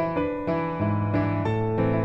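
Background piano music: a gentle melody over held low notes, with a new note or chord every few tenths of a second.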